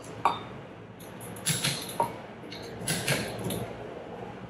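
Click-type torque wrench working the air-chamber bolts of a Wilden 2-inch bolted metal AODD pump, giving a handful of sharp metallic clicks at irregular intervals as the bolts are brought to their set torque of 14 foot-pounds.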